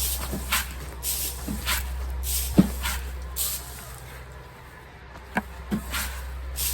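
Footsteps crunching at a walking pace, about two a second, pausing for a second or so past the middle, over a steady low hum.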